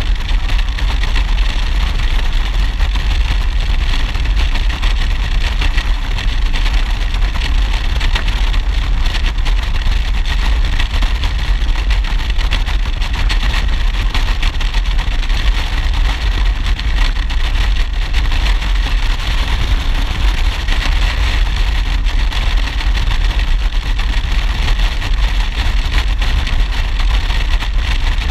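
Motorcycle cruising at a steady road speed: the engine runs evenly under a continuous rush of wind and road noise, with a deep steady rumble and no change in speed or gear.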